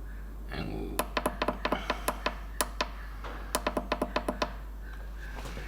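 Clicky push-buttons on an ultrasonic cleaner's control panel pressed over and over in two quick runs, stepping the timer or temperature setting.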